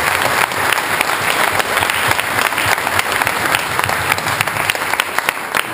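A crowd applauding: steady, dense clapping from many hands.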